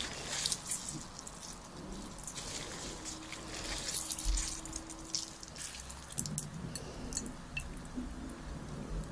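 Water being wrung out of tofu wrapped in a cotton cloth: drips and trickles falling onto a ceramic plate, with the wet cloth squishing and the glove rubbing as the hands squeeze. The crackly sounds come thickest in the first few seconds and then thin out.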